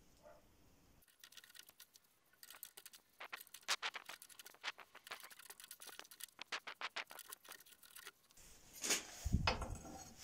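Thin steel strip being worked and bent by hand against a bench vise: a long run of rapid, irregular light clicks and scrapes of metal on metal, then two louder knocks near the end.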